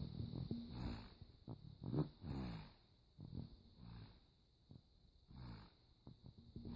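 Snoring: short pitched snores about once a second for the first few seconds, then sparser and quieter, with one more snore near five and a half seconds in.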